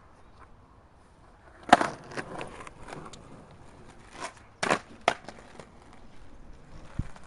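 Skateboard on asphalt: a sharp clack of the board hitting the pavement about two seconds in, a run of smaller knocks and scrapes, then two more loud clacks close together near five seconds.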